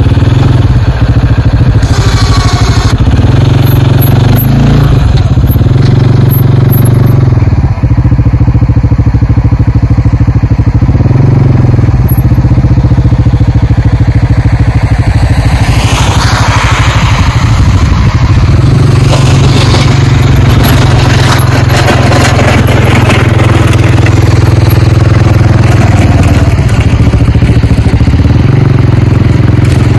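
CFMOTO CForce 450L ATV's single-cylinder engine running steadily at low revs while plowing snow with its front blade, with a brief rush of noise about halfway through.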